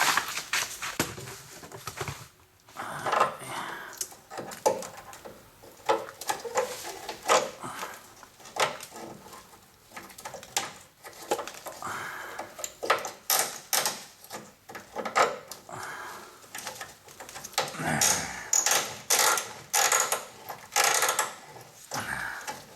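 Irregular clicks, clanks and short scrapes of hand tools and metal parts being worked, as a stubborn, rusty parking brake cable is pried and pulled loose.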